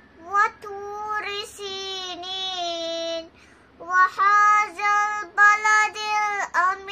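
A five-year-old girl chanting a Quran recitation in Arabic, one melodic voice holding long notes. She pauses briefly for breath a little past the middle.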